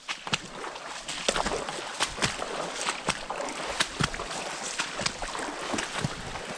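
Footsteps sloshing through shallow standing water in flooded woods and pushing through dry brush, with irregular sharp snaps and cracks of twigs and stems.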